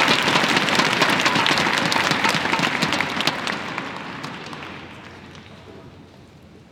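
Crowd applauding, loud at first and dying away over the next few seconds.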